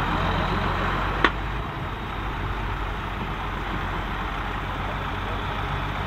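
County 1184 TW tractor's diesel engine running steadily under load while pulling a six-furrow plough, with one sharp click about a second in.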